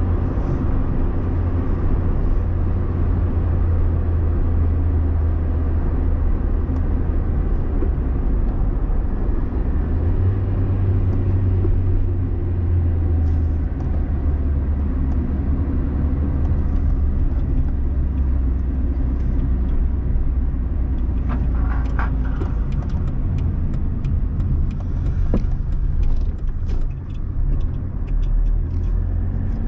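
Car engine and road noise heard from inside the cabin: a steady low drone. The engine note steps up for a couple of seconds about ten seconds in, and scattered light ticks and rattles come in over the last several seconds.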